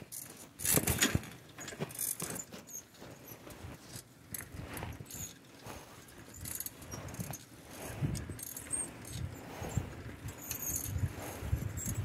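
Bicycle rattling and clinking as it rolls along, the jangle of loose parts and the handlebar mount shaken by the pavement, loudest about a second in. A low rumble builds in the last few seconds.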